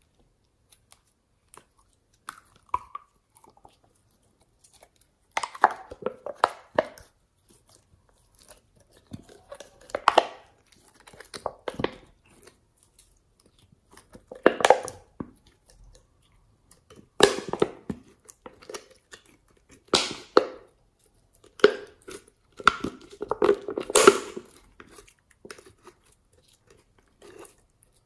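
Soft plastic bottle of clear glitter slime being squeezed, pouring slime into a glass dish of slime. It comes as short bursts of crackling and squelching every second or few, with quiet gaps between.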